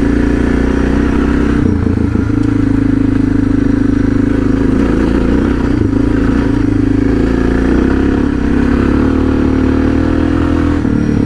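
Suzuki DR650's single-cylinder engine running steadily under a rider at road speed, its note shifting slightly about two seconds in and again near the end.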